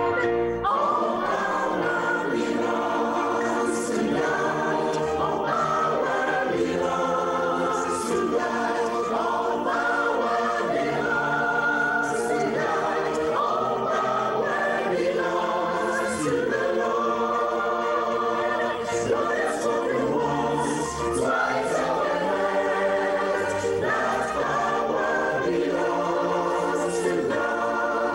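Church choir of men's and women's voices singing together in long held chords.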